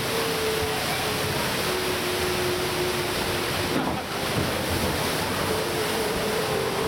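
Steady rushing of water in a log flume channel as a log boat floats along it, with a faint steady tone underneath; the rush dips briefly about four seconds in.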